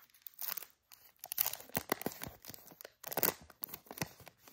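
A trading card pack wrapper being torn open and crinkled by hand, in several short rips and rustles.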